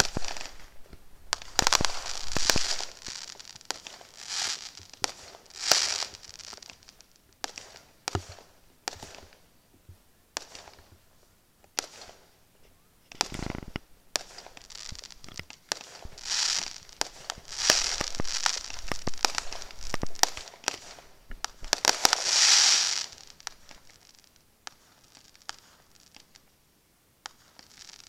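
Fireworks display: shells bursting with sharp bangs and bursts of crackling every second or two, with one deeper boom about halfway through. It thins out to scattered pops in the last few seconds.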